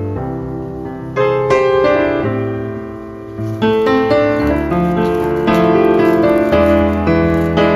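Background piano music: notes and chords struck one after another and left to ring.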